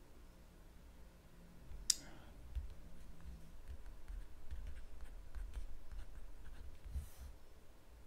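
Faint scratching and ticking of a fountain pen nib on a paper notepad during handwriting, with one sharp click about two seconds in.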